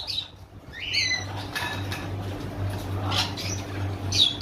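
Parrots calling, with short chirps and gliding whistles followed by harsh squawks about once a second, over a steady low hum.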